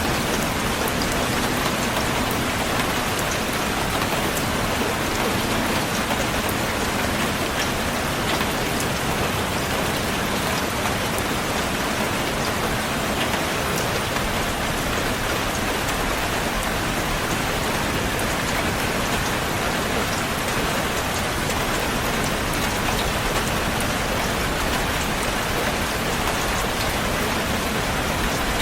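Heavy rain falling steadily on a surface, a constant hiss with fine scattered drop patter.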